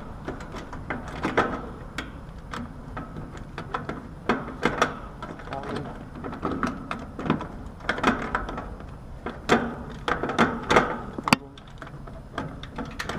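Handling noises at an air conditioner's electrical panel: irregular clicks, knocks and rattles of tools and metal parts, with one sharp click near the end.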